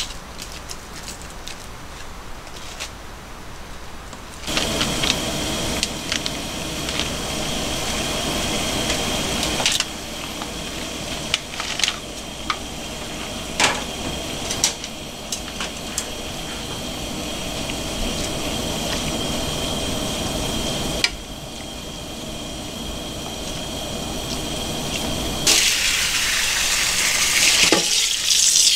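Noodles boiling in a pan of water: a steady bubbling hiss broken by a few sharp clicks. Near the end the pan is tipped into a metal colander and the hot water pours through in a louder splashing rush.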